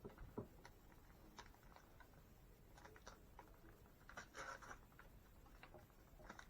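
Near silence with faint scattered taps and rustles of toy packaging being handled, and a slightly louder rustle about four seconds in.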